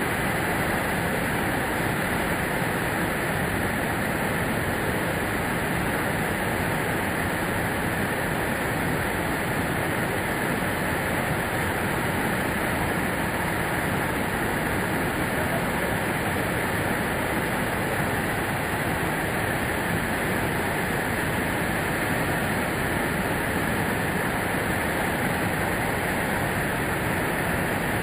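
Savica waterfall's falling water rushing steadily, an even, unbroken noise that neither rises nor falls.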